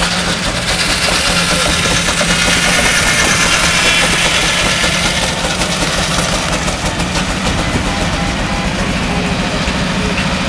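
Fowler single-cylinder steam traction engine working hard under load, belt-driving a circular sawbench that is cutting through a log: a steady, loud mix of saw and engine running.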